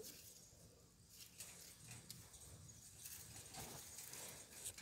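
Near silence: faint outdoor background with a few soft, scattered clicks.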